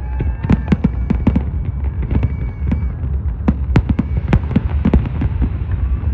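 Fireworks going off in quick succession: sharp bangs, several a second, over a continuous low rumble.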